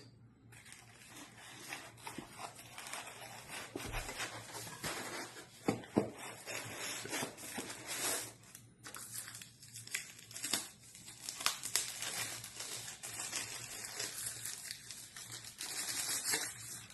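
Plastic packaging crinkling and tearing as a boxed part is unwrapped by hand, with irregular sharp crackles and short pauses.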